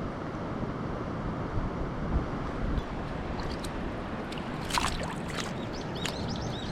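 Steady rush of flowing river water, with a bird giving short, high chirps and calls from about halfway in.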